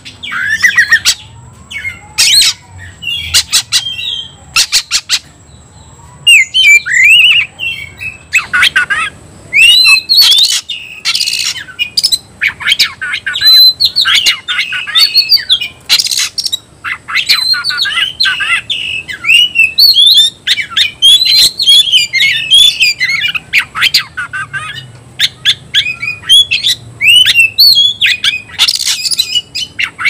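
Oriental magpie-robin (kacer) singing hard in fighting mood: fast runs of whistled notes mixed with harsh squawks and rasping calls, phrase after phrase with only short pauses.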